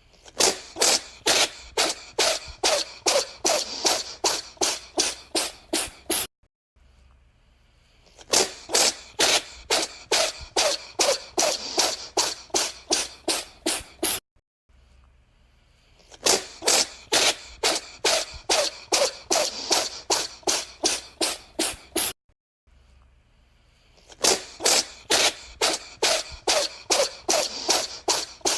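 A cat sneezing in a rapid fit, about three sharp sneezes a second for some five seconds. The same fit plays four times over, each time after a short pause.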